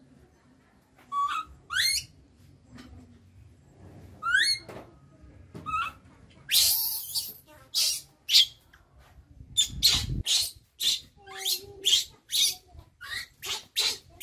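Baby macaque crying in distress at being left alone: a few sharp rising squeals in the first half, then loud, harsh screams repeated about twice a second from about six and a half seconds on.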